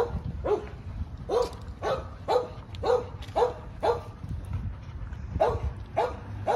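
A dog barking in a regular series, about two barks a second, each bark dropping in pitch. There is a pause of about a second and a half past the middle.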